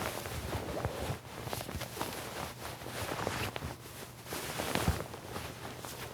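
Irregular small clicks and rustles, like a household object being handled, with a slightly louder knock about five seconds in.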